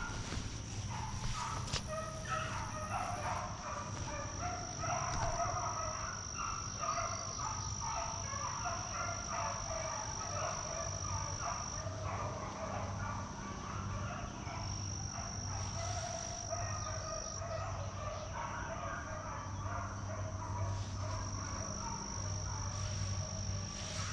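A pack of beagles baying in the distance, many short overlapping yelps running on without a break, as the hounds run a rabbit's trail. A thin, steady, high insect buzz comes and goes over them.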